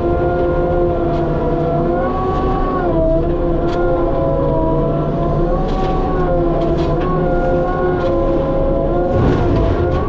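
Skid steer running at high throttle while driving a Harley power rake. Its steady pitched whine dips and recovers several times as the rake takes load, with a few scattered clicks and knocks.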